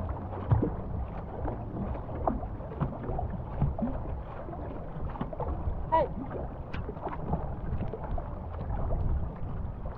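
Canoe paddles dipping and pulling through the water in steady strokes, with splashing along the hull of a tandem racing canoe under way. Wind rumbles on the microphone throughout.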